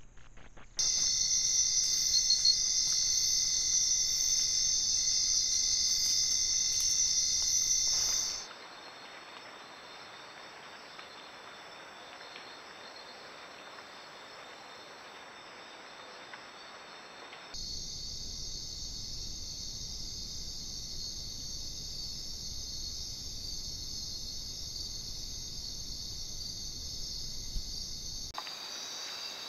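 Steady, high-pitched chorus of night insects such as crickets in the rainforest. It drops abruptly to a faint hiss about eight seconds in and returns just as abruptly some nine seconds later.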